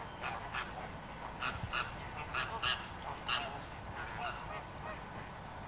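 A flock of flamingos honking: about seven short calls in the first three and a half seconds, then a few fainter ones.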